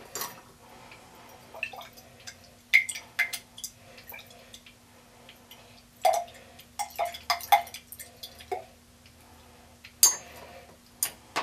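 Glass test tube clinking and tapping as it is handled and shaken to dissolve ferric ammonium sulfate crystals in water, with scattered sharp taps and a quick cluster of them about six to seven and a half seconds in.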